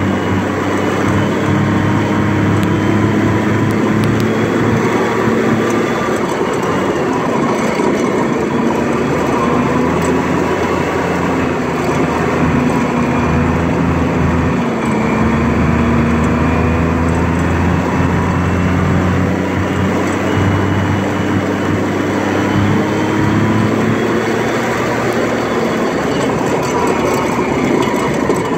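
M106 mortar carrier's engine running as the tracked carrier drives along, its note rising and falling gently with the throttle. It runs without trouble, its fuel-system problems sorted out.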